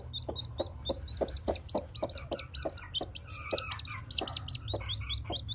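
A chick peeping in a fast, steady run of short high cheeps, about five a second, louder and quicker around the middle, with a broody hen's low clucks close by.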